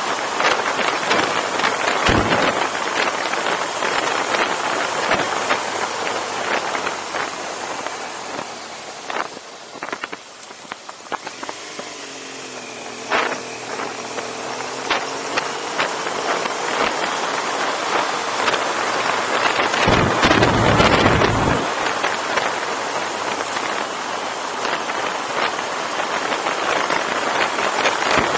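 Wind rushing over the microphone of a camera on a moving BMW adventure motorcycle, with the engine underneath. About ten seconds in the wind eases and the engine note is heard dipping and rising for several seconds; near twenty seconds a heavy gust buffets the microphone.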